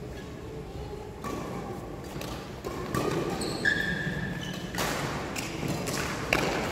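Badminton doubles rally: several sharp racket strikes on the shuttlecock a second or two apart, with short squeaks of sneakers on the court mat and footfalls in between, in a large hall.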